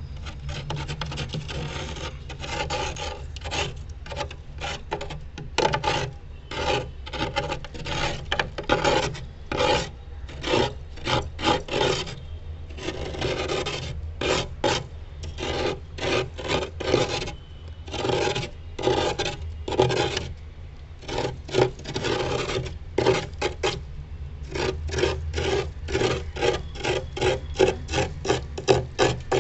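Metal spoon scraping freezer frost, a quick run of short rasping strokes, some single and some in rapid clusters, over a steady low hum.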